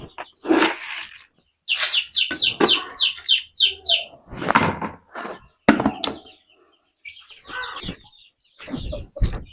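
Chicks peeping in quick runs of short, high, falling notes, with several sharp knocks among them.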